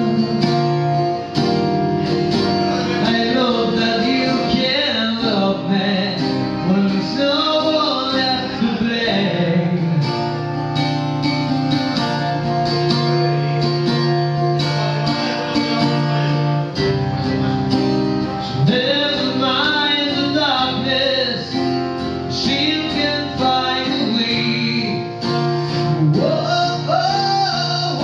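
Man singing to his own strummed acoustic guitar, in sustained phrases over held chords, with a short break in the vocal around the middle.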